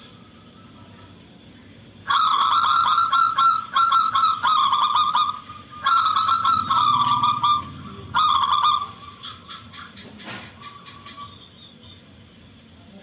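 Zebra dove (perkutut) cooing shrilly in three bursts of rapid, stuttering coo notes, starting about two, six and eight seconds in, with a fainter call a little later.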